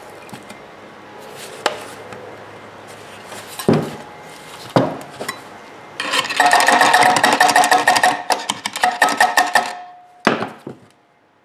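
Metal-on-metal handling of a cut-open sheet-steel Honda EU2000i muffler: a few separate knocks, then about four seconds of a screwdriver scraping and rattling rapidly inside it with the thin steel ringing, and one more knock near the end.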